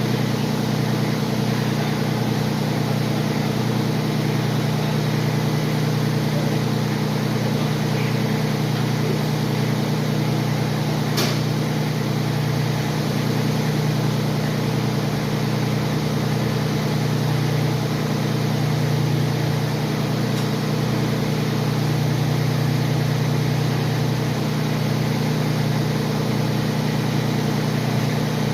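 Grasshopper mower's engine running steadily at an even speed, with one sharp click about eleven seconds in.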